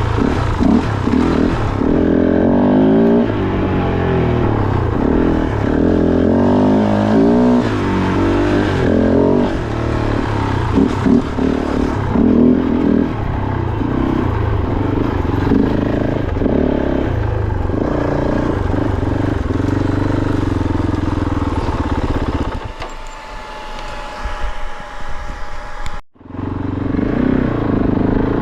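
Kove 450 Rally's single-cylinder engine running under varying throttle while riding, its pitch rising and falling as it accelerates and backs off. It goes quieter for a few seconds near the end and drops out for an instant before it returns at full level.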